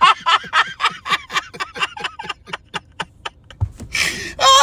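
A man laughing hard in a rapid, staccato run of short "ha" pulses, about six a second, that gradually thin out; about four seconds in it breaks into a loud, breathy gasp with a falling squeal.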